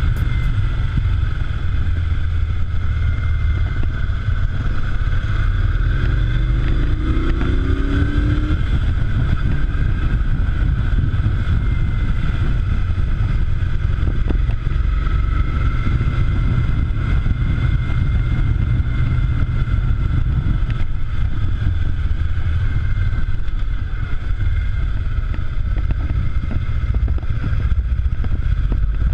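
Moto Guzzi V-twin motorcycle being ridden, its engine running under heavy wind rumble on a chest-worn camera. About seven seconds in the pitch rises briefly as the engine picks up.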